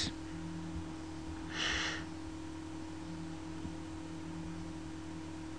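Room tone with a faint steady electrical hum, and a single breath about a second and a half in.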